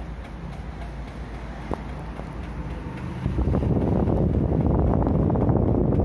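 Old Maspion F-160S four-blade stand fan running with a steady hum and a few light ticks. About halfway through, its airflow starts buffeting the microphone with a loud rushing.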